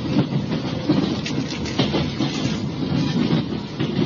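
Interior noise of a night local electric train running: a steady rumble of wheels and running gear with irregular rattles and clicks. Heard through an old cassette-tape recording, which dulls the highs.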